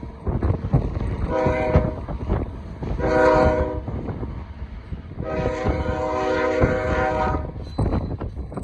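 Diesel locomotive air horn sounding three blasts, two short and one long, over the rumble of a moving train.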